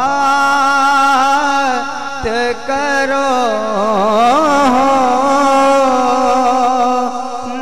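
A man's voice singing a naat, an Urdu devotional poem in praise of the Prophet, through a microphone and PA system without instruments. He holds long notes and bends the pitch in ornamented turns.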